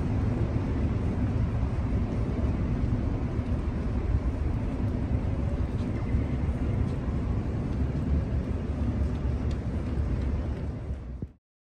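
Strong wind buffeting the microphone, a loud, uneven low rumble that cuts off abruptly near the end.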